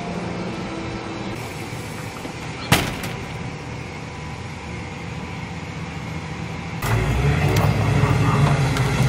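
A car running, with a steady rumble and noise, and a single sharp knock a little under three seconds in. About seven seconds in the sound grows louder and deeper.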